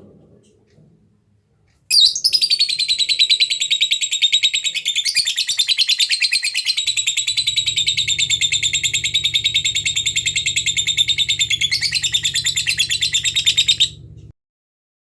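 Lovebird giving a long ngekek: a very fast, unbroken chattering trill that starts about two seconds in, runs for about twelve seconds and cuts off abruptly. This is the long trill lovebird keepers play to provoke other lovebirds into answering.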